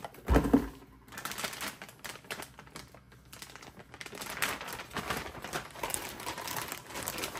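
Packaging being handled and unpacked by hand: plastic and cardboard crinkling and rustling in irregular short bursts with small clicks, and one louder brief thump about half a second in.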